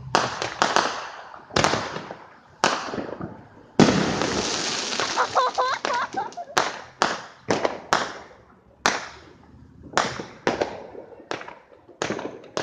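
Aerial fireworks exploding close by in a rapid string of sharp bangs. The loudest comes about four seconds in and is followed by a couple of seconds of dense crackling, then single bangs go on at shorter and longer gaps.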